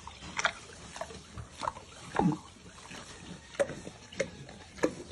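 Pig chewing and smacking on soft ice cream, a wet click about once a second, with a louder low falling sound about two seconds in.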